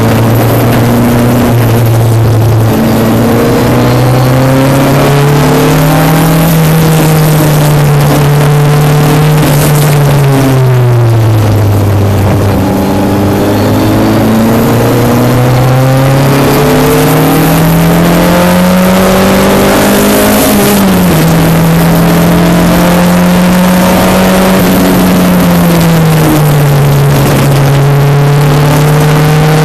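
Single-seater race car's engine heard from the cockpit on track. Its note falls as the car slows for a corner about a third of the way in, then rises steadily under hard acceleration. The pitch drops sharply with an upshift about two-thirds through, and drops again shortly after.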